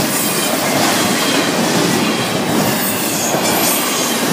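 Florida East Coast Railway freight cars rolling past close by: a loud, steady rumble and clatter of steel wheels on the rails.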